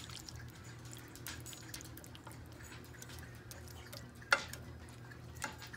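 A spatula spreading a wet chili-meat mixture in a glass baking dish: soft squelching and small clicks, with one sharp knock against the dish about four seconds in, over a low steady hum.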